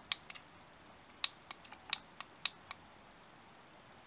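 About eight sharp plastic clicks at uneven spacing in the first three seconds, from the BB-8-shaped sound button on a Poe's X-wing model being pressed over and over. No sound effect plays: the toy's sound module is not working, which the owner puts down to flat batteries.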